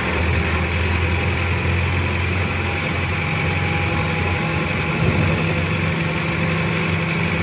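Bus's diesel engine running steadily in second gear, heard from inside the cab. Its low drone shifts a little higher in pitch about four seconds in.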